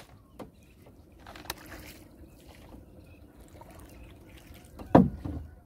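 Water trickling and lapping around a small boat as a fishing net is being set, with a couple of light knocks and one loud thump about five seconds in.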